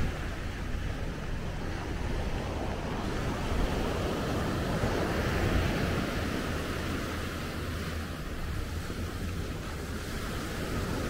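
Sea surf washing onto a beach, a steady wash that swells briefly about midway, with a low rumble of wind on the microphone.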